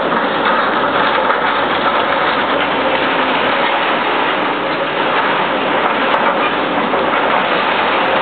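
Heavy equipment diesel engines, from a wheel loader and an excavator, running steadily in a dense, unbroken noise.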